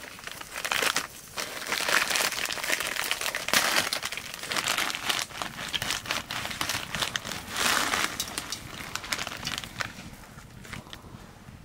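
Thin plastic noodle packet crinkling and rustling in the hands in irregular bursts as it is opened and the dry noodles are tipped out; the rustling dies down near the end.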